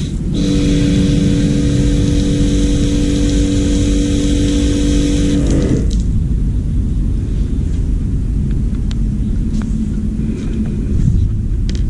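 Paint spray gun on a compressed-air hose triggered open: a steady hiss of air rushing through the nozzle with a low whistling tone, lasting about five seconds and then cutting off suddenly as the trigger is released.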